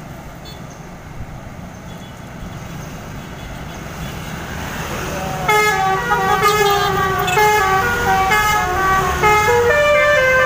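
Basuri 'telolet' multi-tone bus horn playing a melody of stepping notes, several tones at once, starting loudly about halfway through. Before it, a vehicle engine rumbles and grows louder.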